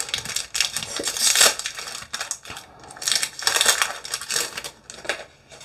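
Foil wrapper of a Pokémon booster pack crinkling as it is torn open and the cards are pulled out, in irregular rustles with two louder bursts.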